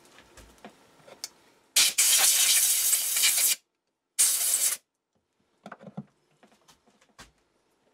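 Two bursts of loud spraying hiss, the first nearly two seconds long and the second about half a second, with a few light metallic clicks around them.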